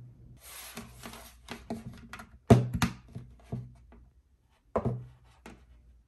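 Hands handling a selfie ring light kit: a short rustle, then a series of sharp clicks and knocks, loudest twice, about two and a half seconds in and near the five-second mark.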